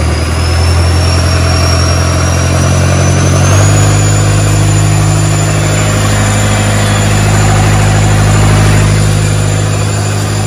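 Hino J05E four-cylinder turbo diesel running on a test stand after a rebuild, with a steady low hum. Its speed steps up about three and a half seconds in, and a high thin whine rises in pitch and then holds.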